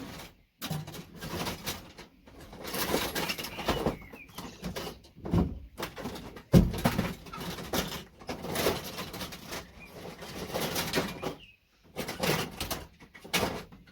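VGA connectors being worked off scrap circuit boards by hand and with pliers: an irregular run of clicks, scrapes and clattering of metal and plastic, with one sharp knock about six and a half seconds in.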